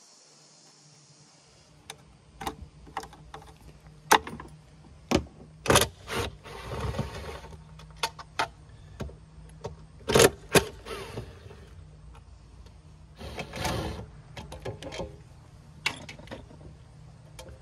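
A cordless driver whirs in short runs, backing screws out of an old outboard motor's metal lower housing. Between runs, sharp metallic clicks and knocks come from the tool, screws and cowling panels being handled.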